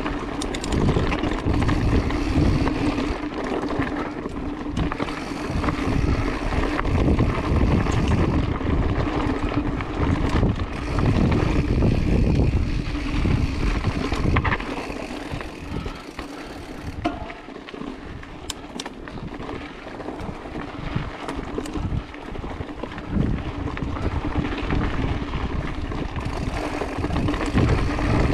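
Mountain bike rolling fast over dirt singletrack: tyre rumble and rattle with wind buffeting the action camera's microphone, easing off a little in the middle.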